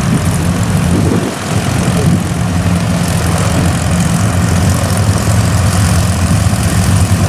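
Fairchild PT-19's Ranger inverted inline-six engine running at low taxi power as the plane taxis close by, with a steady low propeller-and-engine note.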